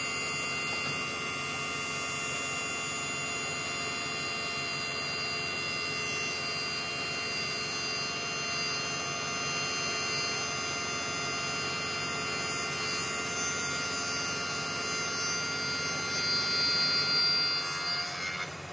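A running machine giving a steady hum with hiss and several steady whining tones; it drops off shortly before the end.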